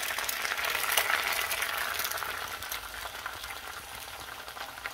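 Eggs sizzling in a hot frying pan, a steady crackling hiss that slowly dies down.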